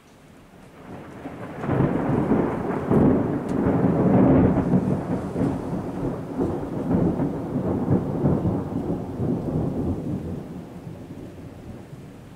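Thunder rolling: a long rumbling peal that swells in over the first couple of seconds, stays loud for several seconds, then slowly dies away.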